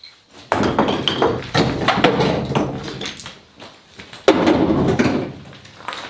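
Chunks of broken concrete being tossed into a pickup truck bed, clattering onto the pile of rubble several times, the loudest a little past four seconds in.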